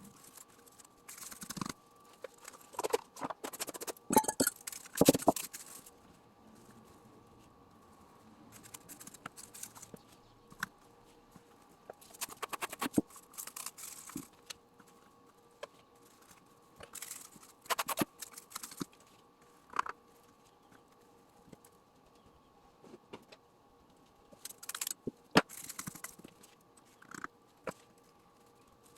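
A spoon scraping and tapping in an ice cube tray lined with cling wrap, packing dishwasher-tab powder mixture down into the moulds, in irregular bursts of clicks and scrapes with pauses between.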